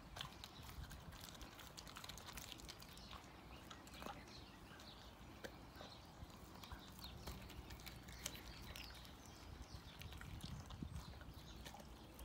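A lurcher chewing a raw sardine: faint, irregular wet clicks and crunches from its mouth on the fish.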